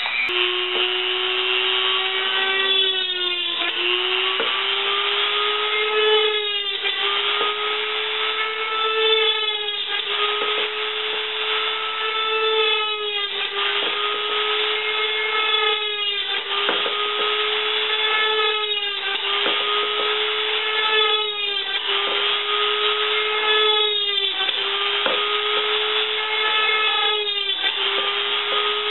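Corded Dremel rotary tool running at high speed, drilling holes in the thin metal wall of a drink can. Its steady whine dips in pitch and climbs back about every three seconds as the bit is pressed into the can.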